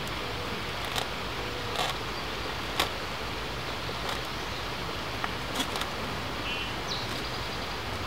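Steady outdoor background noise with a few faint, scattered taps and clicks as a plastic spirit level is shifted against a wooden post. A brief high chirp comes near the end.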